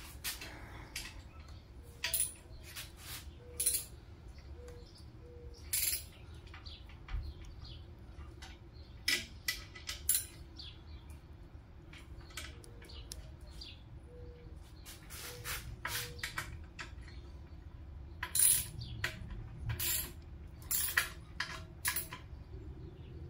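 Scattered sharp metallic clinks and taps of hand tools and hardware being handled, at irregular intervals, over a low steady hum.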